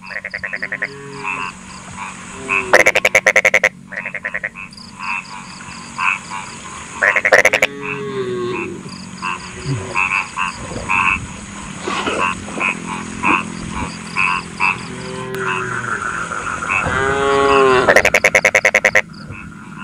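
Chorus of frogs: loud rattling croaks come every few seconds over a steady background of quicker, higher-pitched calls.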